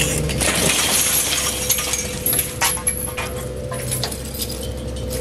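Heavy machinery running with a steady hum and a low rumble, with scattered short clinks and clatter of debris through it.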